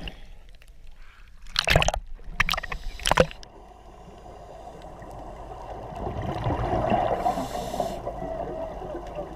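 Seawater sloshing and gurgling around a camera at the sea surface, with three short loud splashes in the first three seconds. After that comes a steady, muffled underwater bubbling and rushing that grows a little louder.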